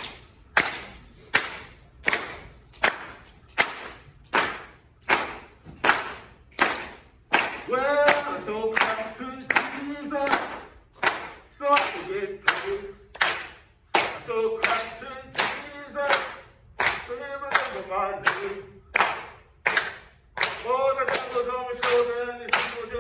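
Steady rhythmic hand claps, about three every two seconds, with a voice singing long, drawn-out notes between them.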